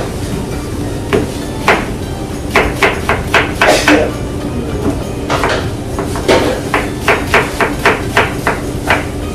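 Food being struck on a cutting board in uneven runs of sharp knocks, several a second at times, over a steady kitchen hum.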